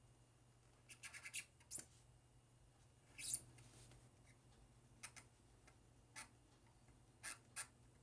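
Hobby knife blade cutting through thick VHB foam tape around a mouse glide pad on a cutting mat: faint, short scratchy strokes, a few in quick succession about a second in, the loudest a little past three seconds, then single strokes every second or so. The blade is one its user says needs sharpening.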